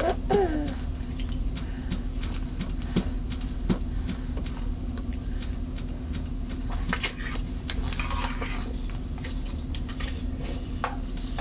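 A toddler eating ramen noodles with her fingers: scattered soft wet smacks and little irregular clicks from her mouth and hands in the noodles.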